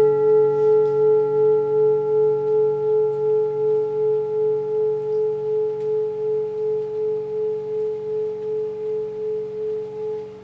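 Large metal singing bowl ringing after a single strike, one strong steady hum with fainter overtones, pulsing in loudness a couple of times a second as it slowly fades, then dropping suddenly near the end.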